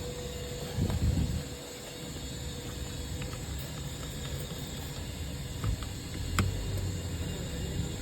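Handling noises in a car interior: a low rumble about a second in and a few sharp clicks, the loudest about six and a half seconds in, over a steady hum.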